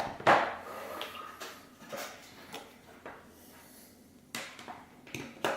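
Plastic plug adapters being handled: a loud knock about a third of a second in, then several lighter clicks and knocks of hard plastic parts.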